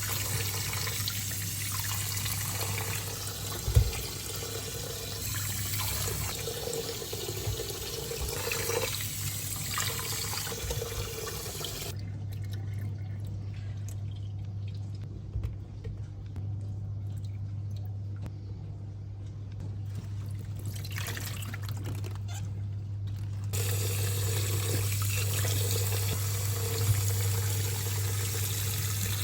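Kitchen tap running into a sink, a steady hiss that stops a little before halfway and comes back about ten seconds later, with a few short knocks and a steady low hum underneath.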